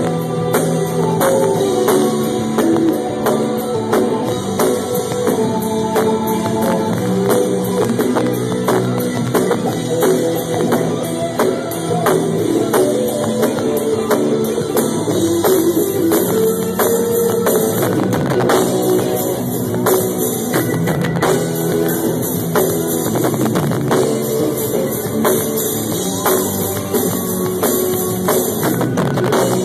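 Live rock band playing: a drum kit keeping a steady beat under electric guitars, bass guitar and keyboard.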